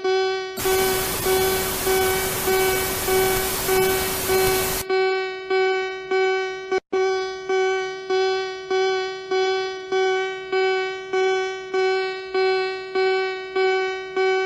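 Emergency alert alarm tone: one buzzy, horn-like tone repeating in pulses just under twice a second, each pulse starting loud and fading. A loud burst of static hiss covers it for about four seconds near the start.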